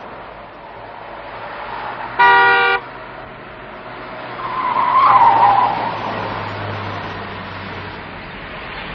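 A car driving along a road, its engine and road noise steady, with a short car-horn toot about two seconds in. Around five seconds the car swells louder with a brief wavering tyre squeal, as if taking a bend.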